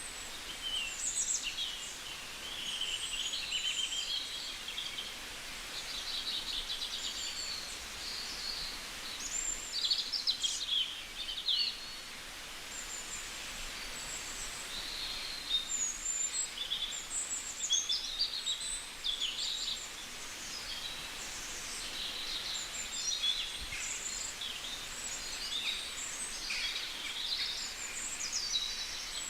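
Several birds singing and calling, overlapping chirps and trills without pause, over a steady hiss.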